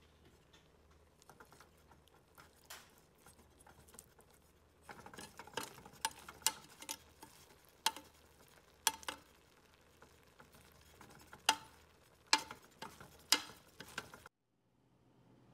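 A metal spatula stirring and fluffing cooked rice in a metal pressure cooker. Soft rustling and scraping, then from about five seconds in, repeated sharp clinks as the spatula knocks against the pot, about ten of them, before the sound cuts off shortly before the end.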